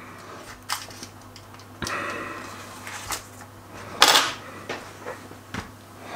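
Hands working puff pastry on parchment paper, with soft rustling and a few light clicks. About four seconds in, a metal kitchen knife is set down on the glass hob with one sharp clack.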